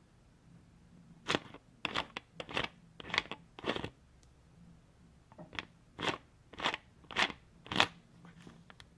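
A bottle's screw cap being twisted by hand: a run of short twisting strokes between about one and four seconds in, then, after a pause, four evenly spaced turns about half a second apart near the end.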